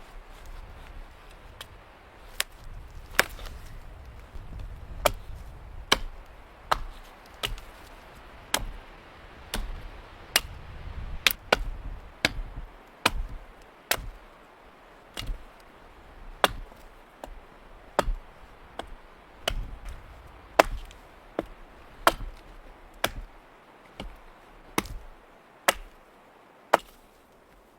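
Wood being chopped: sharp blade strikes in a steady rhythm of about one a second, with a low rumble under the first half.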